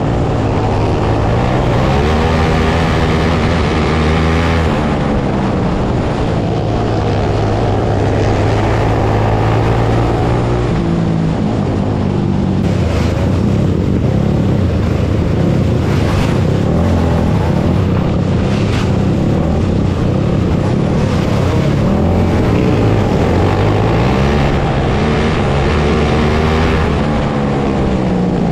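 Open 500 outlaw kart engine racing, its revs rising and falling in repeated sweeps, with a steady rough noise underneath.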